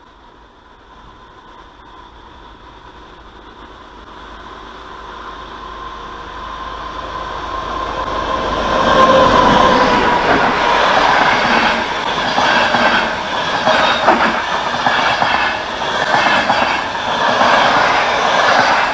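Train approaching, growing steadily louder over about nine seconds with a faint steady whine from the rails, then running close by with rhythmic clickety-clack from the wheels over the rail joints; the sound cuts off suddenly at the end.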